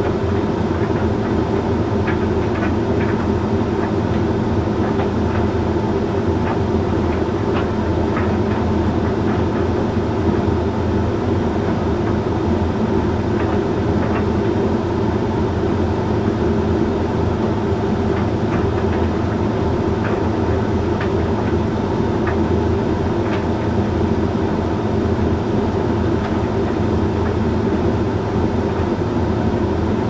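Hoover Link X Care HLX C10DRGR condenser tumble dryer running mid-cycle on a load of shirts: a steady motor and fan hum with light, irregular clicks as the shirts tumble in the drum.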